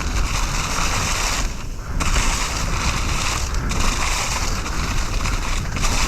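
Mountain bike tires rolling and skidding over dry fallen leaves on a dirt trail, a steady crunching hiss with wind buffeting the microphone as a low rumble; the noise eases briefly about one and a half seconds in.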